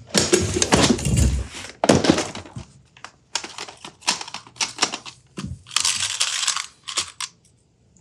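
Plastic compartment organizer box set down on a workbench and opened with knocks and clatter, then hands rummaging through its plastic bins, with sharp clicks and rattling of small insulated crimp terminals. It stops about seven seconds in.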